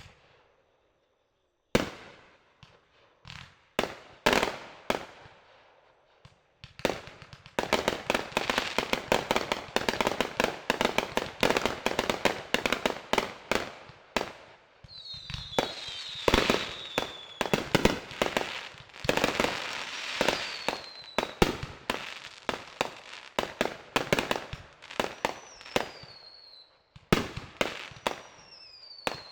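Fireworks going off: a few separate bangs, then from about seven seconds in a dense, rapid crackle of many small reports. High whistles falling in pitch run over it several times in the second half.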